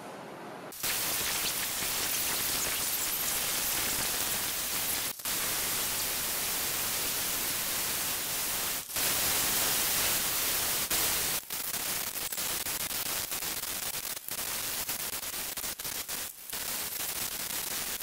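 Disc grinder running a mini cup brush over an aluminium engine head cover, played greatly sped up so that it comes out as a dense, even hiss. The hiss breaks off suddenly for an instant several times.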